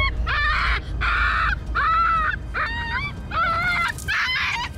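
A frightened puppy crying and yelping over and over, about seven short, high, wavering cries in a row, as it is caught by hand and pulled from its hiding hole.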